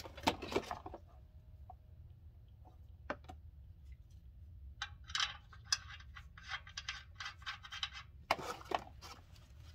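Fill plug being handled and threaded by hand into the fill hole of a rear differential cover. Light metallic clicks and clinks: a few scattered ones at first, then a run of quick small clicks from about halfway, and a louder cluster near the end.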